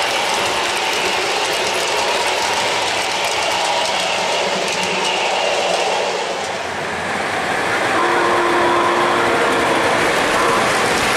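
O-gauge three-rail model trains running on the layout's track: a steady rolling rumble of metal wheels with fast clicking over the rail joints. About eight seconds in, a steady pitched tone sounds for a couple of seconds over the running noise.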